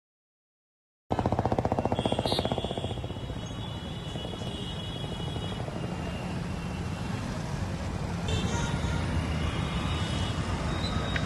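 Busy street traffic of motorcycles, auto-rickshaws and cars: engines running and vehicles passing, with horns sounding in two spells. The sound starts suddenly about a second in, at first with a rapid fluttering pulse.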